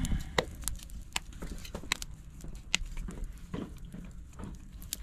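Wood cooking fire crackling under an iron griddle: irregular sharp clicks and pops, a few of them louder, over a low steady rumble.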